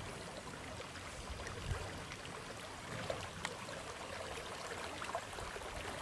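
Steady, soft wash of flowing river water around a drifting canoe, with a few faint ticks.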